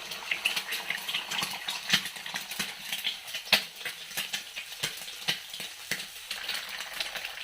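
Hot oil sizzling in an iron kadai as eggs go into it, with frequent sharp clicks and knocks against the pan, the loudest about two seconds and three and a half seconds in.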